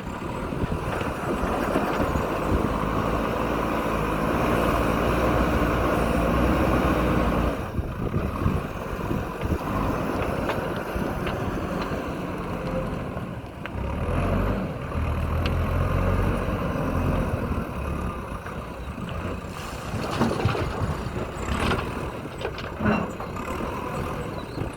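JCB backhoe loader's diesel engine working under load, its speed rising and falling several times as the machine digs and loads, with a few sharp knocks near the end.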